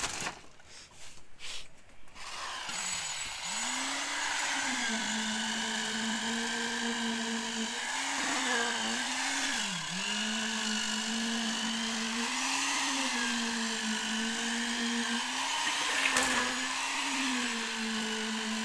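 A few knocks, then a concrete poker vibrator's motor starts about three seconds in and rises to speed. It runs with a steady hum whose pitch sags and recovers several times as the needle is worked into the fresh concrete of the slab.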